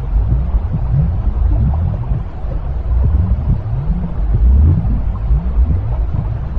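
Steady, loud, low rumbling noise from a continuous baby sleep-aid 'white noise' track, heaviest in the bass, with short rising swells recurring in the low end.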